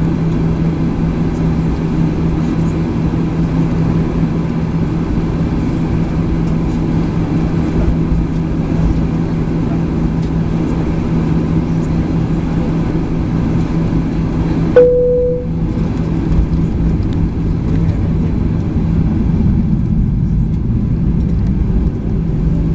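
Boeing 737-800's CFM56 engines running at taxi power, heard inside the cabin as a steady rumble with a low hum. About 15 seconds in there is a short, loud single-tone chime, typical of the cabin call chime.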